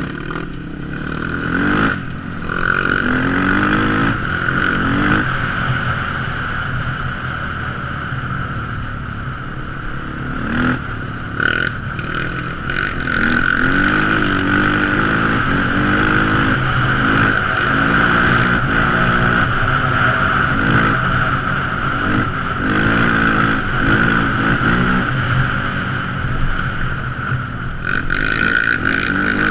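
Quad ATV engine running under way, its revs rising and falling again and again as the throttle is worked, with a steady high-pitched whine throughout.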